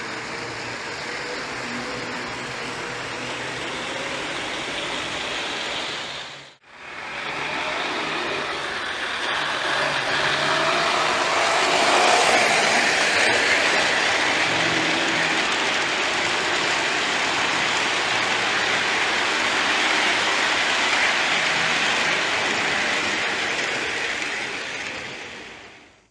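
Lionel O-gauge F3 diesel locomotives and passenger cars running on three-rail track: a steady rumble of wheels on rail with a faint motor hum. It drops out for a moment about six seconds in, is louder once the train runs close by, and fades away at the end.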